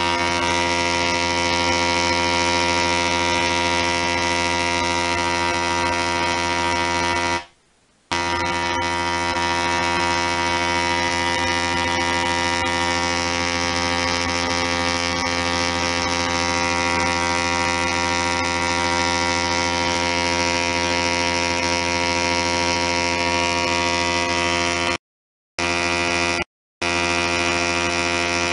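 Half-bridge solid-state Tesla coil firing long spark streamers, making a loud, steady buzz rich in overtones, pitched by the interrupter's pulse rate. It cuts out for about half a second around eight seconds in and twice briefly near the end.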